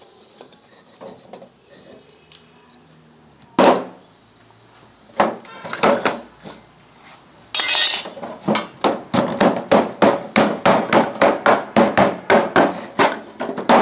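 Hammer blows: a few separate knocks, then from about halfway a steady run of quick strikes, about four a second.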